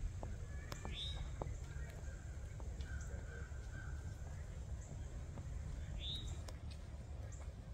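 A bird calls twice, about five seconds apart, over a steady low rumble.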